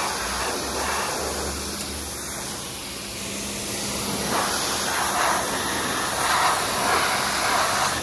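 Pressure washer's high-pressure water jet hissing and spattering against a brush cutter engine, over a steady hum from the washer. The spray grows louder about halfway through.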